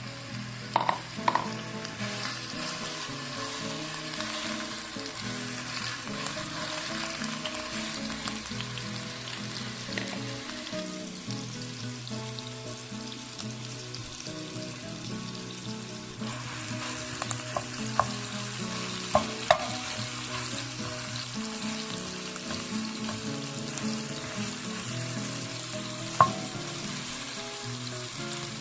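Food frying and sizzling in a pan, with stirring and a few sharp clinks, over soft viola caipira music.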